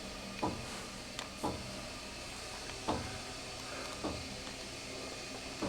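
Steady low hum inside a freight elevator cab, with five short soft knocks about a second apart.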